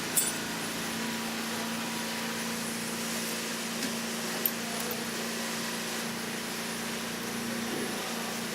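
A steady mechanical hum with an even hiss, broken by a few short sharp clicks: one just after the start and one about four and a half seconds in.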